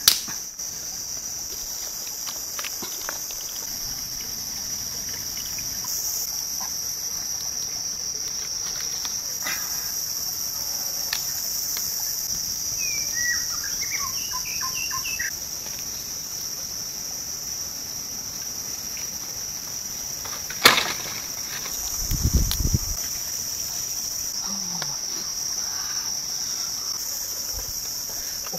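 A steady, high-pitched chorus of insects buzzing. A few brief chirps come in near the middle, and a single sharp knock followed by a short low thud come about twenty seconds in.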